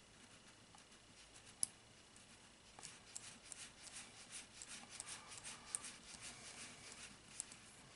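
Faint clicking and scraping of a small threaded lens retainer being screwed by hand into a rifle scope's ocular lens assembly. One sharper click comes about a second and a half in, then a run of quick small clicks and scratches from about three seconds until near the end.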